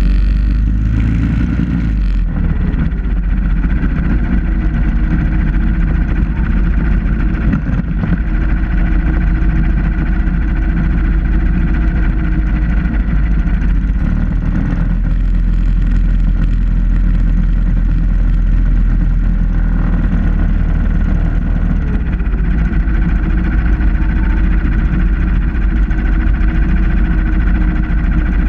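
Supermileage vehicle driving steadily, its small engine running under loud wind rumble and road noise on the body-mounted camera.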